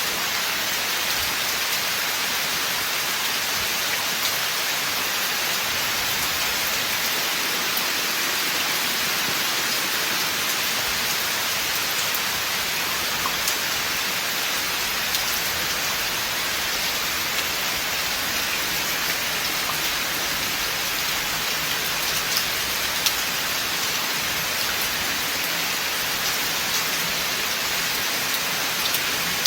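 Steady rain falling in a forest, an even hiss with scattered sharper taps of single drops.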